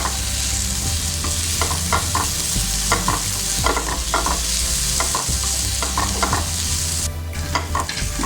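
Spatula stirring and scraping a shallot-tomato masala with spice powders around a hot oiled pan, over a steady sizzle, with short scraping strokes about every half second. The masala is being sautéed until the oil separates.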